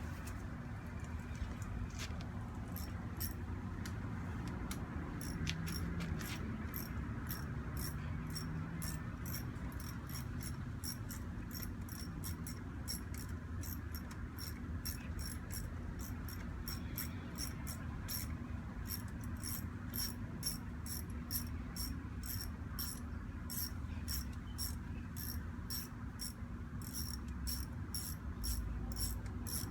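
Ratchet wrench clicking in a long, even run of light clicks, about two a second, while the clutch lever's fastener is turned, over a steady low rumble.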